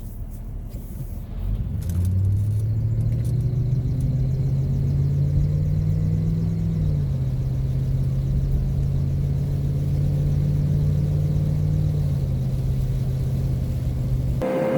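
Van engine heard from inside the cab as the van pulls away, the engine note rising for about a second before it settles into a steady drone at road speed. The pitch steps down a little about seven seconds in, and the sound cuts off abruptly near the end.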